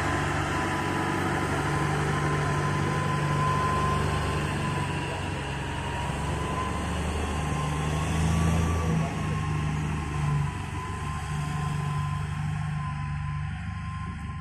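Heavy mining machinery running steadily as an electric rope shovel works beside a loaded dump truck: a low, continuous drone with a thin high whine that wavers slightly in pitch, swelling a little about two-thirds of the way through.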